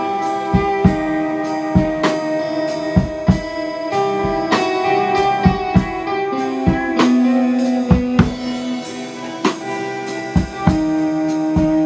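Electric guitar and drum kit playing together: held, changing guitar notes over a drum beat with frequent kick and cymbal hits.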